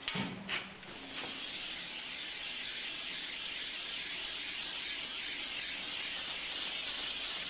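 A couple of short knocks in the first second, then a gas torch flame burning with a steady hiss.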